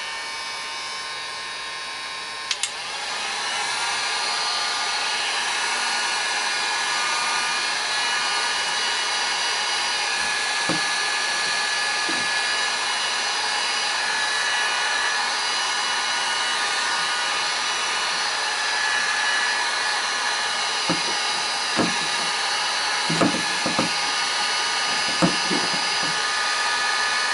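Electric heat gun running on its low setting, a steady whir of fan and rushing air with faint whining tones, softening a dented plastic ATV fender. A click about two and a half seconds in, after which it runs louder, and a few short knocks near the end.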